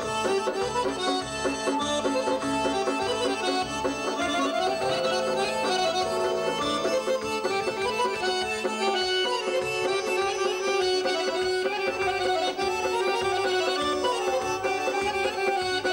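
Two garmons, Azerbaijani button accordions, playing a folk melody together over a steady rhythmic bass pattern.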